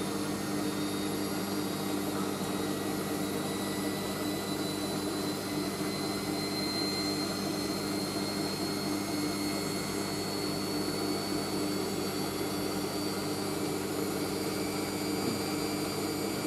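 Hoover AAA160 Whisper 1600 washing machine in an intermediate spin: the drum spins at speed with a steady motor hum and a high whine that creeps slowly up in pitch.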